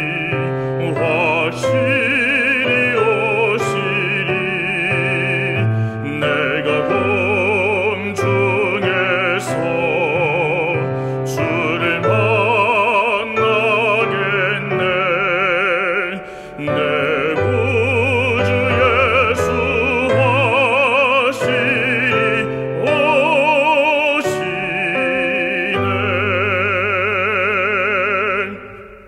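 Classical-style singing with wide vibrato over sustained instrumental accompaniment; the music fades out at the end.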